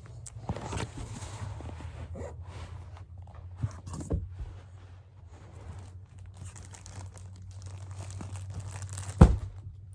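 Rustling and crinkling handling noises over a steady low hum, with one sharp thump near the end.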